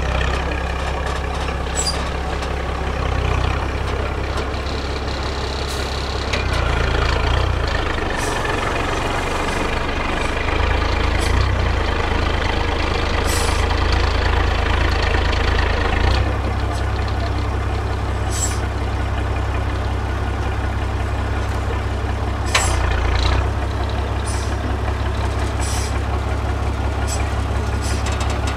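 Diesel engine of a 4x4 trial truck working at low speed as it crawls through a deep rut, its note rising and falling several times. Short hisses come at intervals.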